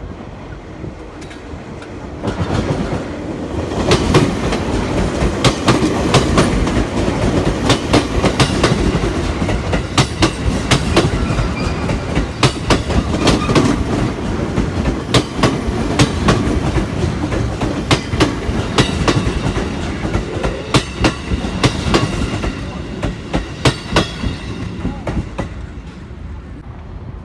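Train passing, its wheels clacking rhythmically over rail joints, building about two seconds in and fading away near the end.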